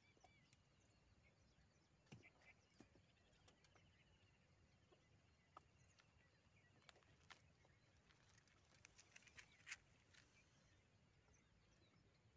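Near silence: faint open-air ambience with a few scattered soft clicks and ticks, the clearest a little under ten seconds in, and faint bird chirping.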